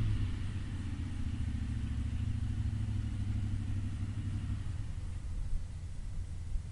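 A steady, low, engine-like mechanical hum at an even pitch, which eases down slightly right at the start.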